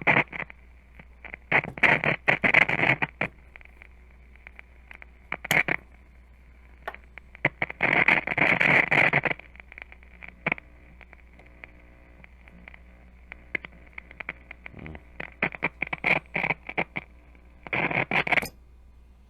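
A 1953 Philco 53-956 AM/FM radio on the AM band at full volume, putting out static with no station coming through: irregular bursts of crackling hiss and scattered clicks over a low steady hum. The owner takes the crackle for silver mica disease.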